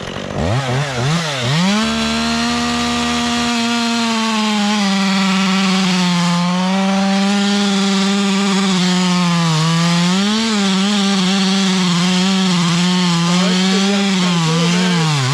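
Two-stroke chainsaw revved up to full throttle and held there while cutting through a log of butternut wood, its pitch sagging briefly under load a few times and picking back up.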